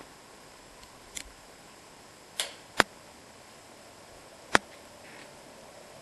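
A few sharp clicks and knocks of a door latch and door being handled, as the door to a toilet room is opened. Two of them are loud and sharp, about a second and three quarters apart.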